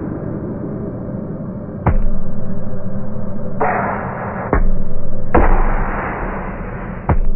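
Muffled, low rumbling noise broken by three sharp clicks about two and a half seconds apart, with two louder stretches of hiss in between.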